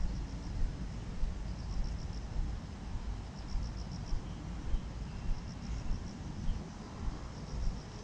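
Insects chirping outdoors at dusk in short rapid pulse trains that recur every couple of seconds, over a steady low rumble and the walker's regular footsteps.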